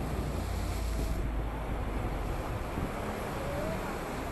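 Waves washing and breaking against a rocky seawall, a steady rushing noise, with low wind rumble on the microphone.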